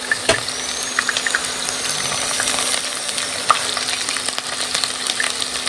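Garlic and dried red chillies frying in hot oil in a pan: a steady sizzle, with scattered clicks and scrapes of stirring.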